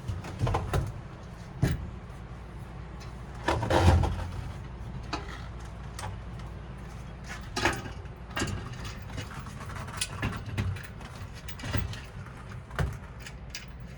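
Bicycle front wheel being handled and fitted into the fork: scattered knocks, clicks and light metallic rattles, the loudest knock about four seconds in.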